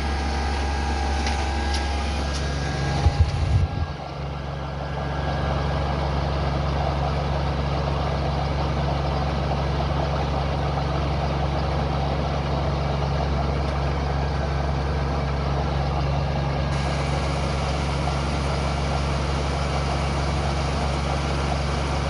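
12V camper air conditioner running steadily with its compressor at speed setting 4, a constant hum of fan and compressor under a load of about 51 amps. A few knocks about three seconds in.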